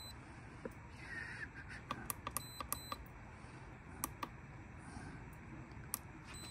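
Quiet, scattered soft clicks from the buttons on a Masterbuilt electric smoker's digital control panel being pressed to set the temperature, over faint outdoor background noise.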